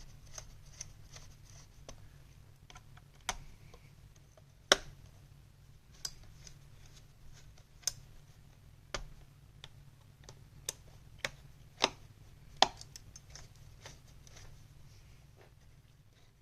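Small sharp clicks and taps of a screwdriver and screws against a laptop's plastic and metal parts as a CPU fan is screwed in. About a dozen clicks at uneven intervals, two of them louder than the rest.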